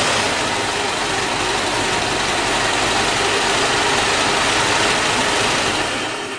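Ford Model T's four-cylinder flathead engine running steadily, falling away sharply near the end.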